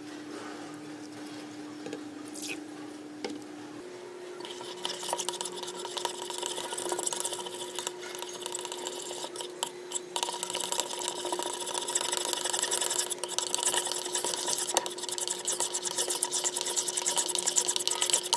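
Stirring and squishing a sticky slime mixture in a bowl: a dense, wet crackle of small clicks that starts about four seconds in and grows louder, over a steady low hum.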